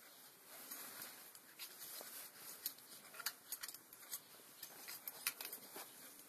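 Small sharp metallic clicks and light scraping of a snap ring being worked off a gear on a tractor transmission input shaft. The clicks come irregularly and grow busier in the second half.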